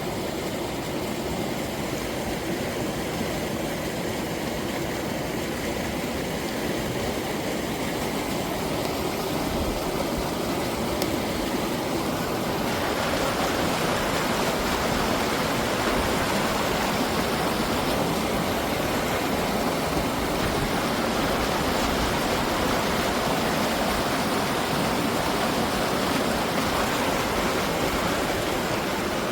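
Mountain valley stream rushing, a steady noise of flowing water that turns louder and brighter about twelve seconds in.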